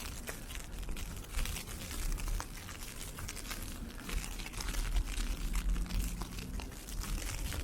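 Footsteps crunching through snow and ice pellets in an irregular crackle, over a low rumble of wind on the microphone that swells about halfway through.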